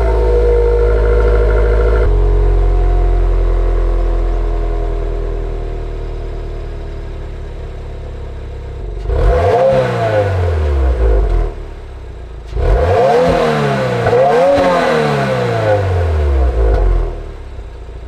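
Stock exhaust of a 2022 Subaru WRX, its 2.4-litre turbocharged flat-four just started from cold: a high fast idle that slowly settles lower. Then three blips of the throttle, one about nine seconds in and two close together a few seconds later, each rising and falling back to idle.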